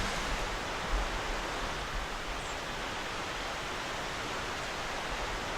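Steady hiss of strong wind blowing through the trees, with a brief low rumble of wind on the microphone about a second in.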